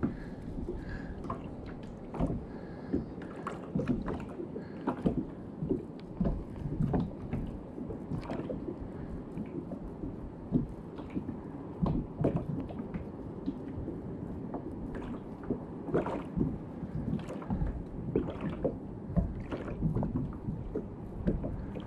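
Small waves slapping and lapping against the hull of a small plastic boat, with irregular light knocks and splashes.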